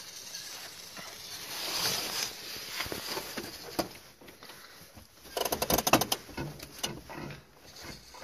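Steps crunching on loose gravel and rock, with a quick run of sharp crunches and clicks about five to six and a half seconds in.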